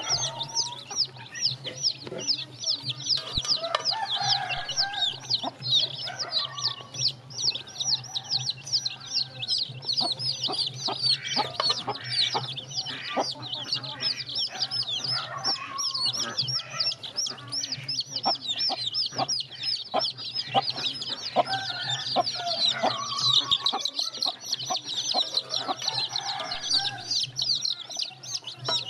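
A brood of young chicks peeping nonstop in rapid, high-pitched cheeps, with lower clucking from the older birds among them. Frequent sharp clicks of beaks pecking at the concrete feed trough.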